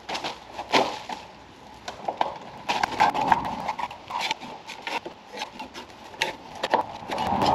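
A hand scraper scraping caked grass clippings out of the underside of a Country Clipper mower deck, in uneven scrapes and knocks.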